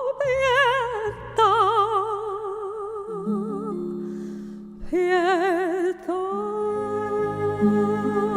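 A classically trained female singer performing an operatic song with wide vibrato over a sustained instrumental accompaniment. The voice breaks off for about a second near the middle, comes back in, then holds a long note to the end.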